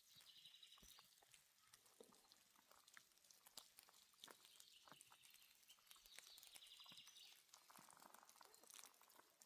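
Near silence, with faint irregular clicks and ticks.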